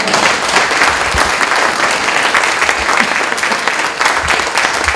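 An audience in a hall applauding, steady dense clapping, which cuts off abruptly just after the end.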